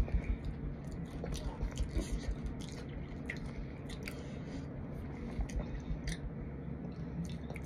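A person chewing a mouthful of raw cornstarch, with soft, irregular crunchy clicks.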